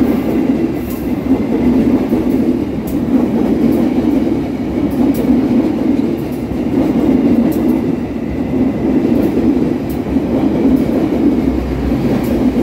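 Lodaya passenger train's stainless-steel carriages passing close by without stopping: a steady loud rumble of wheels on rail with scattered sharp clicks.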